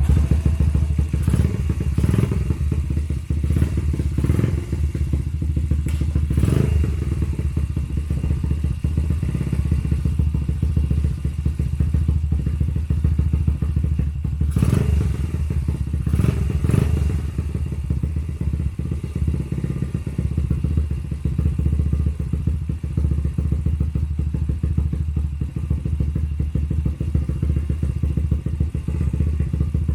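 Honda Gorilla minibike's small single-cylinder four-stroke engine running steadily at idle, with a few short knocks and clatters over it.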